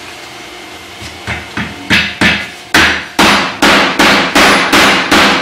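Rubber mallet tapping a plastic wall plug into a 5 mm drilled hole in a particleboard cabinet door: about ten blows, starting light about a second in, then louder and evenly spaced at two to three a second.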